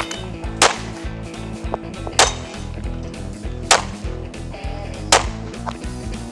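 Background music with a steady beat: a sharp snap about every second and a half over a bed of low sustained tones.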